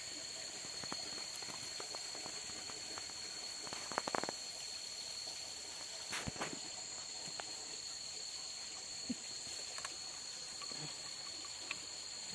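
Quiet riverside background: a steady hiss with a constant high-pitched drone, and a few soft clicks and rustles as paper-wrapped food and a metal cup are handled.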